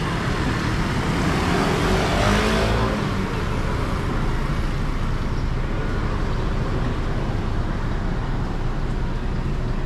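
Road traffic going past a stoplight: a steady rumble and hiss of engines and tyres, with one vehicle passing louder about two seconds in.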